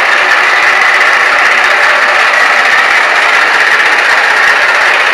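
Massey Ferguson 1035 DI tractor's three-cylinder diesel engine running steadily and loudly.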